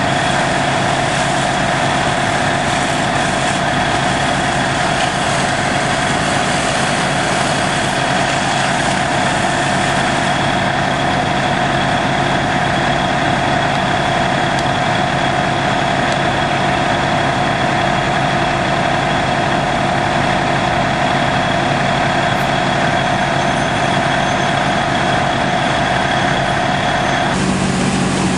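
Fire engine's motor running steadily while it pumps water to the hose lines, with a steady whine over the drone. The whine stops about a second before the end, where the engine sound shifts.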